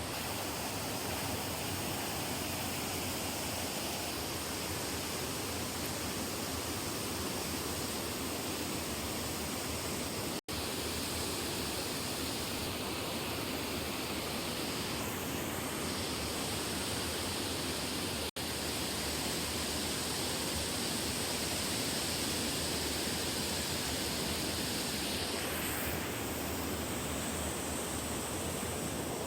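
Steady rushing noise with no clear pitch or rhythm, broken by two very brief dropouts about ten and eighteen seconds in.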